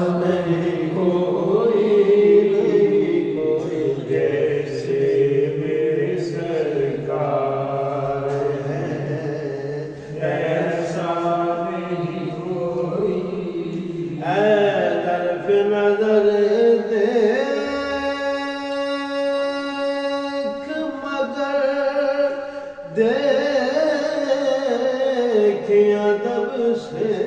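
A man singing an Urdu naat without accompaniment, drawing the words out into long, wavering held notes.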